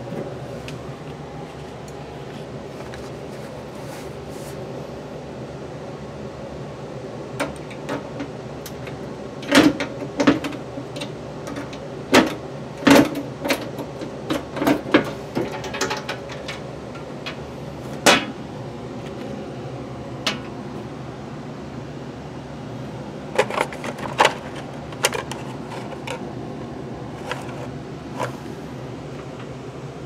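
Interior door handled by hand: scattered clicks and knocks from the knob, latch and door, most of them between about ten and eighteen seconds in, over a steady low hum.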